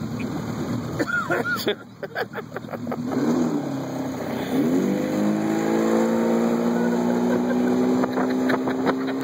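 Boat motor running up, its pitch climbing slowly and steadily over the last four seconds or so. Before that come a few sharp knocks and clatters.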